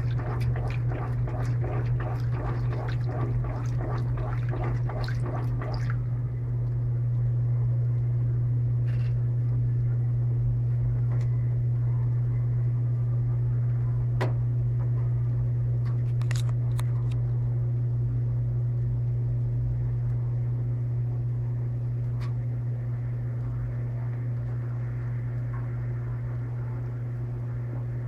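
Electrolux LTP15 top-load washing machine draining, with a steady low hum. For the first six seconds the agitator churns the load in quick, rhythmic strokes to settle the clothes so they won't be unbalanced in the spin. Then the agitation stops abruptly, leaving the steady hum and a few faint clicks.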